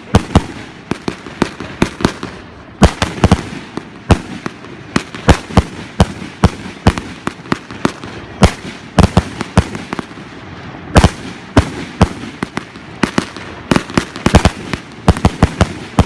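Consumer multi-shot firework cakes going off in a rapid, uneven string of sharp bangs and pops, several a second, with no let-up.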